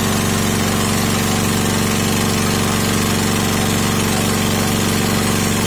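Sakura Storm D9000E portable generator's engine running at a steady, unchanging speed under heavy electrical load, with about 46 amps drawn through a load bank.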